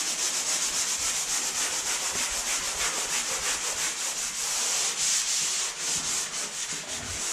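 Fine-grit sanding sponge rubbed by hand over dried setting-type joint compound on a drywall joint: a steady, high scratchy rasp made of quick back-and-forth strokes. The sponge is knocking down the hard edge where the compound meets the existing wall.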